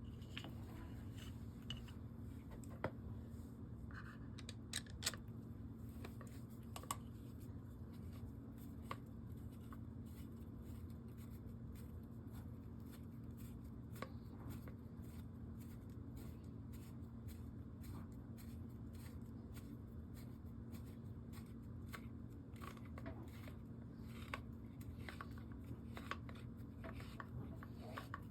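Scattered faint clicks and light scrapes of small parts being handled while a pistol grip is fitted to an AR-15 lower receiver, with bunches of clicks about four seconds in and near the end. A steady low hum runs underneath.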